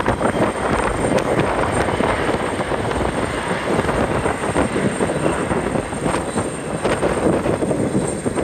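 Strong, gusting wind buffeting the microphone: a loud, rough rushing rumble that swells and dips without a break.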